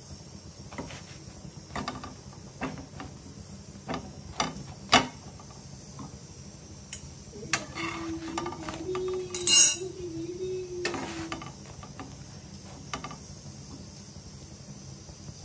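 Metal tongs clicking and clinking against an iron tawa as a chapati is turned, a dozen or so sharp clicks, over a steady hiss. A wavering hum runs for a few seconds in the middle.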